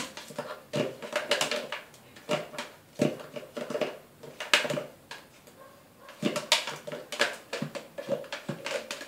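Spatula knocking and scraping inside a plastic blender jar as thick banana cake batter is stirred, in irregular taps.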